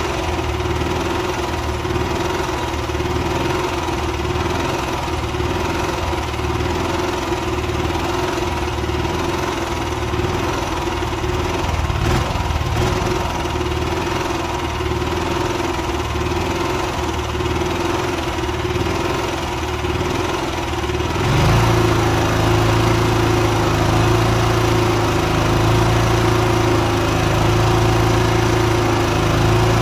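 Honda EB5000i inverter generator engine running steadily, back in working order after its carburetor was cleaned. About 21 seconds in, its sound changes to a deeper, slightly louder hum.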